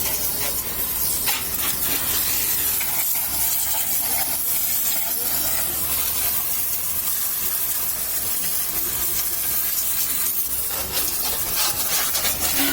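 Steady hissing spray noise that keeps an even level throughout.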